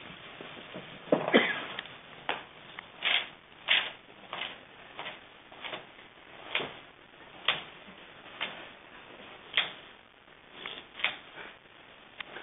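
Pastel crayon scraping across large flip-chart paper in a series of quick, scratchy strokes, roughly one a second, the loudest just over a second in.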